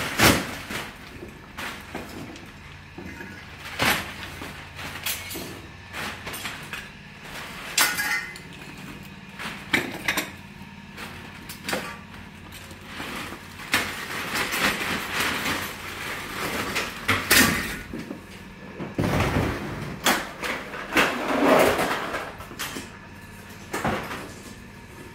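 Irregular knocks, clicks and rattles of tools and gear being handled and put away, with a few louder bangs scattered through.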